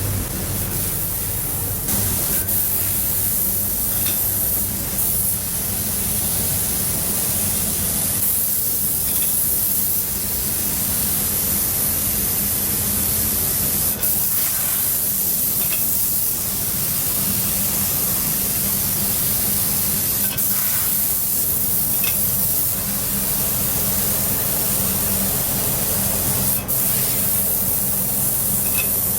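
Steady, loud hiss like spraying or escaping air from factory equipment, with a low machine hum underneath and a few faint clicks.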